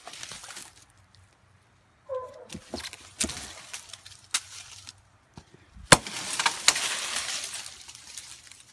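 Wood cracking and snapping as a hatchet-cut tree gives way, with sharp cracks, the loudest about six seconds in, followed by a couple of seconds of crackling and rustling in dry leaves and brush.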